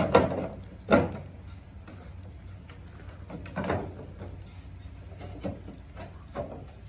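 Rack parts being handled and fitted together: a few separate knocks, with a short clatter about halfway through.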